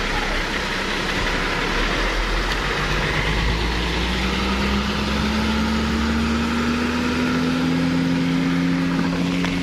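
A heavy cargo truck's diesel engine running as the truck drives slowly past close by. Its pitch climbs slowly from about a third of the way in, over a steady hiss.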